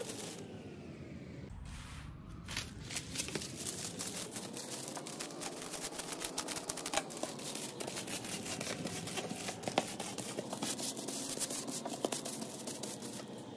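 Metallic foil wrapping sheet crinkling and rustling in many small crackles as it is folded around a styrofoam tray base and cut with scissors.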